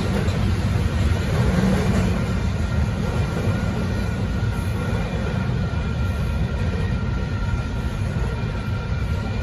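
Double-stack intermodal freight train rolling past, a steady low rumble of the container cars going by, with a faint steady high-pitched tone above it.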